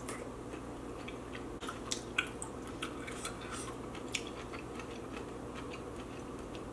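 Someone chewing a pineapple ring: scattered small wet mouth clicks and smacks, most of them in the middle stretch, over a steady low background hum.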